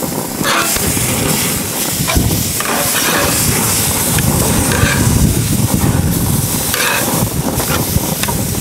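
Thick pork neck steaks sizzling on a hot gas grill as they are turned with metal tongs, with a few short clicks from the tongs. About four seconds in, dripping fat flares up into open flame under the meat.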